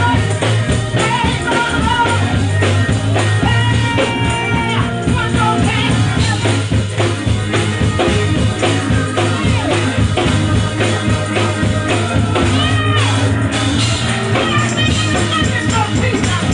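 Live gospel band: a woman singing into a microphone over bass, keys, organ and drums, with a heavy steady bass line under dense drumming.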